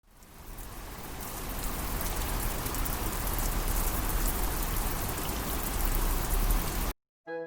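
Heavy typhoon rain pouring down, with a strong low rumble of wind under the hiss. It swells up over the first second or so and cuts off suddenly near the end, when piano music begins.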